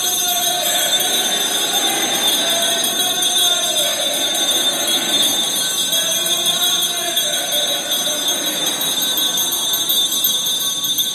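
Crowd in a large, echoing church giving long cries that rise and fall, over a continuous high jingling ring of bells.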